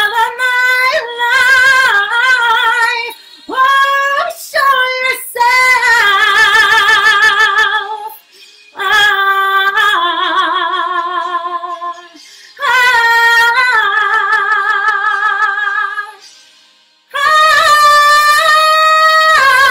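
A woman singing solo, holding long notes with vibrato, in phrases of a few seconds separated by short breaths.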